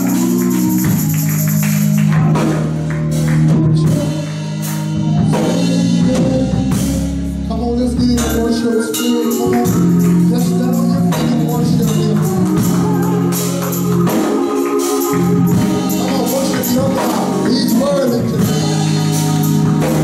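Live gospel music in church: singing with tambourine and rhythmic percussion over sustained low bass notes.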